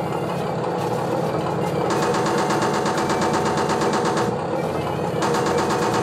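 A model-tank sound card plays simulated Centurion tank sounds through small desktop speakers: a steady engine idle, joined about two seconds in by rapid machine-gun fire. The fire stops briefly after about four seconds and starts again near the end.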